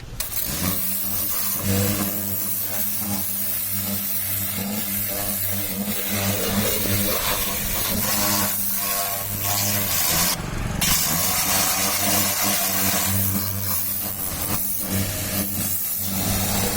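High-pressure washer running steadily: a constant electric-motor hum under the hiss of the water jet.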